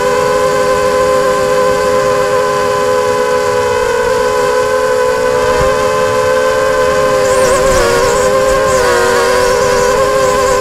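Multirotor drone's motors and propellers whining steadily, several close tones held together, which waver briefly about three-quarters of the way through.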